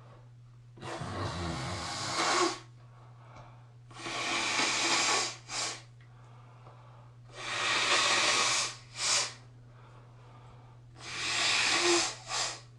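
A person blowing a congested nose into a tissue: four long, wet blows about three seconds apart, the last three each followed by a short extra blow.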